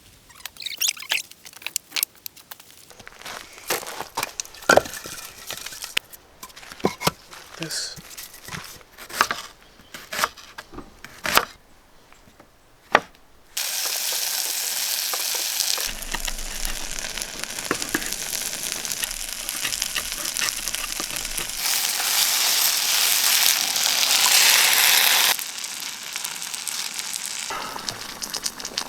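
Scattered clicks and knocks, then food sizzling loudly in a hot pan. The sizzle jumps in level abruptly a few times.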